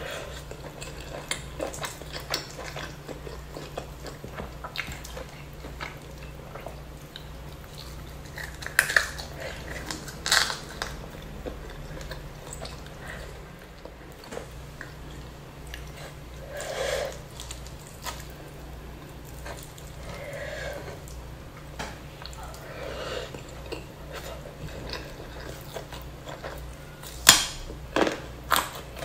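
Close-miked eating: chewing and lip-smacking of spicy duck and rice eaten by hand, picked up by a clip-on microphone, with a few sharp clicks near the end over a steady low hum.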